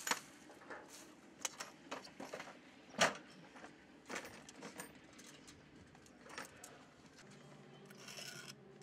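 Light metallic clicks and clinks of hand tools being handled, scattered irregularly, the loudest about three seconds in.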